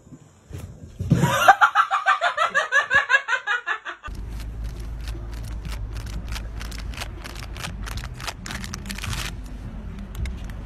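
A person laughing hard in a fast, high run of "ha"s for about three seconds. Then wind rumbling on the microphone, with a run of quick clicks, about five a second, that stops shortly before the end.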